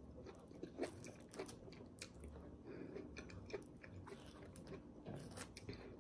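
Chewing and biting into juicy pomelo segments, with many small, sharp mouth clicks scattered throughout.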